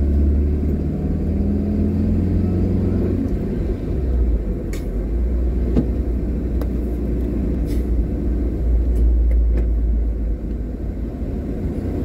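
Car cabin noise while driving: a steady low rumble of engine and tyres on the road. An engine tone in the first few seconds fades about three and a half seconds in, and there are a few faint ticks.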